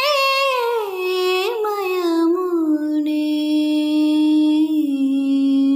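A girl singing unaccompanied, drawing out one long wordless phrase that slides down from a higher pitch and settles on a low held note from about three seconds in.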